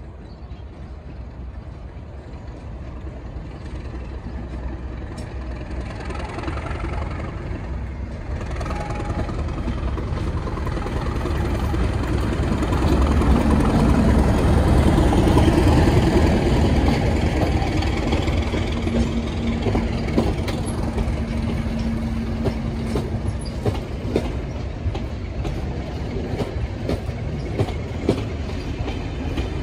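Class 37 diesel locomotive with its English Electric V12 engine approaching and passing close by, growing louder to a peak as it goes past with a steady hum. It is followed by the track-inspection coaches rolling past with repeated clicks of wheels over the rail joints.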